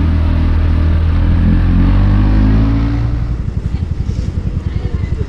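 Motor scooter engine running under throttle, then dropping back about three seconds in to a lower, pulsing, uneven beat as the throttle is eased off.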